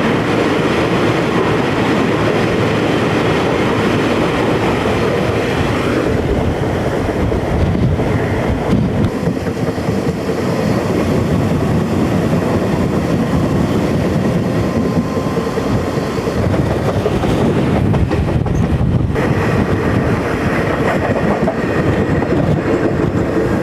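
Passenger train rolling along at speed, heard from an open vestibule: a steady loud rumble of wheels on rail with some clickety-clack.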